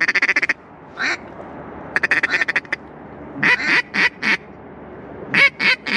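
Mallard duck call blown by a hunter: two runs of fast feed-call chatter, then a few separate quacks and a run of quacks near the end, calling to incoming ducks.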